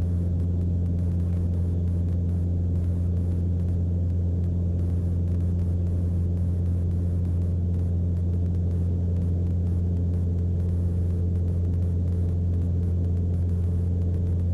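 Mooney M20C's four-cylinder Lycoming O-360 engine and propeller droning steadily in level cruise, heard inside the cabin: a low, even hum that does not change.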